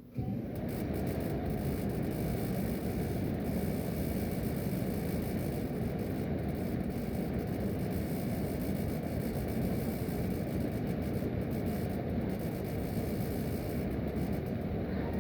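American Standard furnace blower running in cooling mode, heard as a steady rush of air from a supply register. The noise comes in suddenly at the very start and then holds even, deep and full, with a fainter hiss above.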